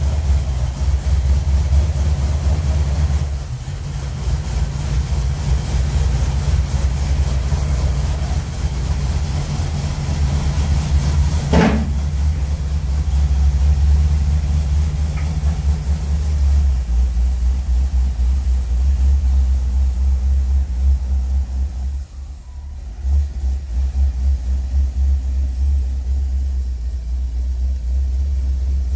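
1951 Chevrolet pickup truck's engine running at a steady idle, heard across several clips with abrupt cuts between them. A brief sharp sound cuts across the engine about twelve seconds in.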